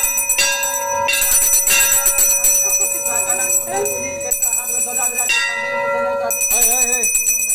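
Brass temple hand bell rung over and over, its strokes merging into a continuous ring of several steady high tones. A voice is heard faintly in the middle and near the end.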